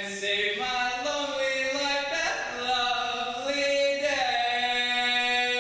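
A man's solo voice singing unaccompanied, a few long held notes that step up and down in pitch.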